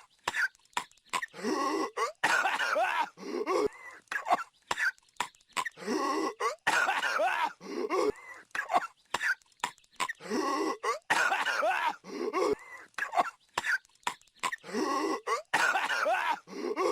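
A cartoon character's voice coughing in repeated hacking fits, a looped clip that comes round again every four to five seconds.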